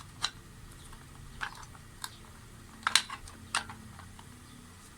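Light plastic clicks and taps from 3D-printed PLA enclosure parts being handled and fitted together, about five sharp clicks spread out, the loudest about three seconds in, over a faint steady low hum.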